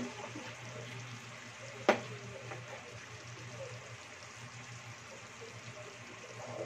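Chicken afritada simmering and sizzling in a nonstick frying pan while a utensil stirs through the tomato sauce, with one sharp knock of the utensil against the pan about two seconds in.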